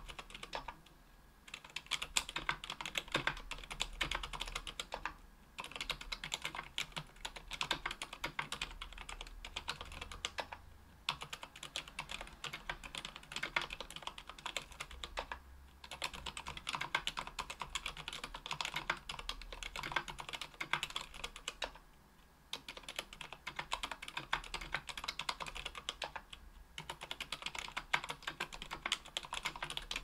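Typing on a KBDfans Tofu 60% aluminium keyboard with lubed Sakurios silent linear switches (62 g), an aluminium plate and GMK keycaps. Fast runs of keystrokes are broken by short pauses about every five seconds.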